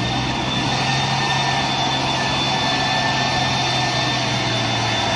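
Diesel engine of a Mitsubishi Fuso tanker truck running steadily as the truck crawls through deep mud, with a thin steady whine above the engine note.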